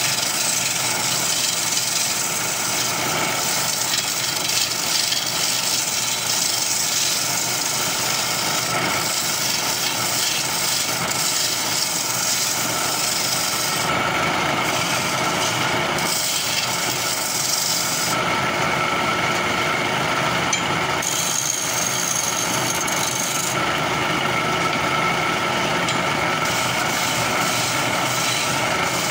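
Wood lathe spinning a wooden blank while a hand-held turning chisel shaves it: a steady machine hum with a hissing scrape of cutting wood over it. The high cutting hiss drops out and comes back several times in the second half as the tool is lifted and set back on the wood.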